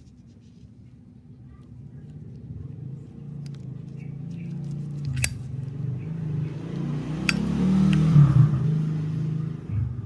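A Zippo lighter's hinged metal lid clicks open about five seconds in, and a second sharp metallic click with a brief ring follows about two seconds later. Underneath is a low rumble that builds up, is loudest near the end and then cuts off.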